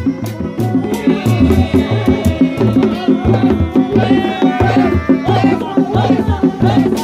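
Sundanese Reak ensemble: several dogdog drums, single-headed laced frame drums, beating a fast interlocking rhythm that repeats steadily. From about a second in, a tarompet reed-pipe melody rises over the drums.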